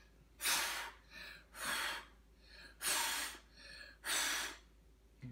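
A child blowing out the candles on a birthday cake: four hard puffs of breath about a second apart, with fainter short breaths between them.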